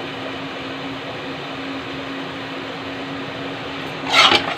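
Steady mechanical hum with a low hiss in the kitchen background. About four seconds in, a metal spatula starts scraping through thick masala paste in an iron kadhai in loud rasping strokes.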